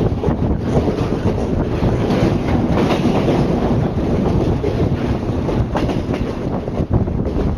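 Electric passenger train running along the track, heard through an open carriage window: a steady rumble of wheels on rail, with a few sharp clacks as the wheels cross rail joints.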